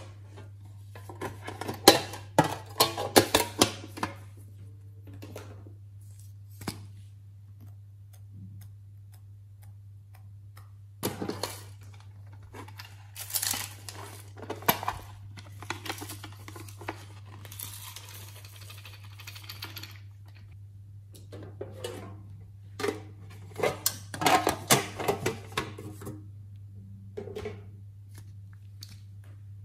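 Small plastic cases and a makeup tube being handled and opened: bunches of sharp clicks, taps and rattles, three times, over a steady low hum.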